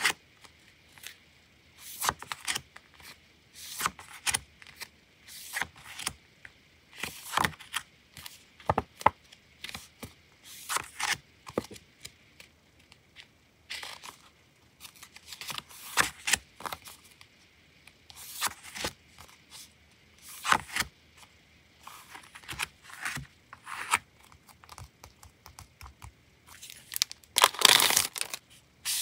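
Sheets of sticker paper being handled and leafed through: short crisp paper rustles and slides, irregular and about one a second, with a longer, louder crinkle near the end.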